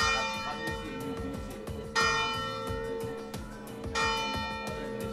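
Bell struck three times, about two seconds apart, each strike ringing on with several clear tones, over background music with a steady beat.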